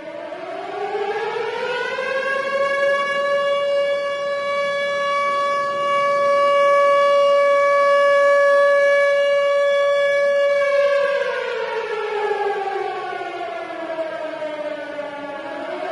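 Tornado warning siren sounding: its tone rises over about two seconds, holds steady for about eight seconds, then winds slowly down and starts to rise again near the end.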